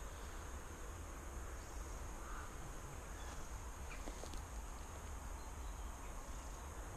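Faint outdoor ambience: a steady low rumble under a constant high, thin insect buzz, with a couple of faint ticks about four seconds in.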